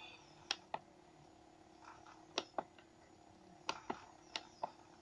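Quiet room with a faint steady hum and several short, soft clicks at irregular moments.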